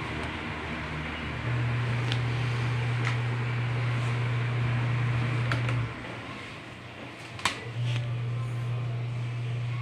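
A steady low hum with background hiss. It drops out about six seconds in and comes back nearly two seconds later. A few light clicks sound over it, the sharpest about seven and a half seconds in.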